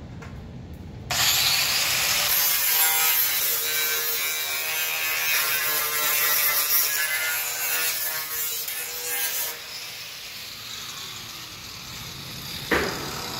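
Handheld 4.5-inch angle grinder grinding along the edge of a steel truck-door panel. A loud, harsh grinding with a whine in it starts about a second in and dies away around ten seconds in. A single sharp knock comes near the end.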